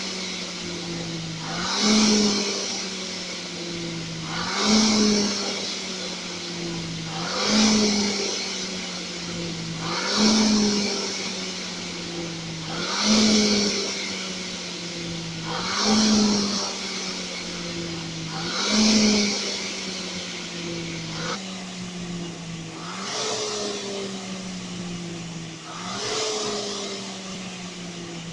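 RP3 dynamic rowing machine's air-braked flywheel whirring under a steady rowing rhythm: with each drive a loud whoosh and a quick rise in pitch, then a slow fall in pitch through the recovery, about one stroke every 2.8 seconds. The strokes from about two-thirds of the way through are softer.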